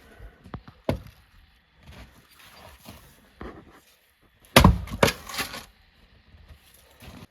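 Firewood being chopped with an axe: a sharp knock about a second in, then two loud strikes about half a second apart a little past the middle.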